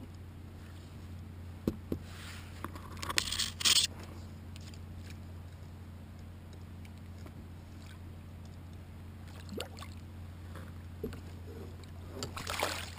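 Handling noise on a sit-on-top kayak while landing a cod: a few sharp knocks, a rustling scrape from about two to four seconds in, and scattered small knocks, over a steady low hum. Near the end there is a brief rush of water splashing as the cod is drawn into a landing net.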